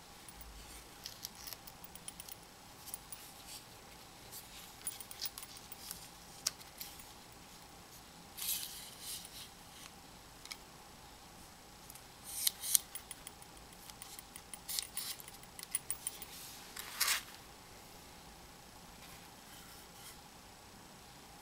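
Hands handling a Lucky FF518 wristwatch fish finder, its rubber strap and its plastic charger parts, giving scattered small clicks, taps and rustles. A few louder scraping or rustling handling noises come about halfway through and again near three-quarters of the way.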